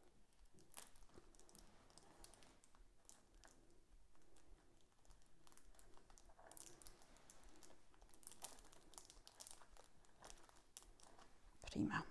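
Faint scraping and light clicking of a table knife worked along the rim of a plastic cake shell, clearing cream and crumbs from the edge, with one louder knock near the end.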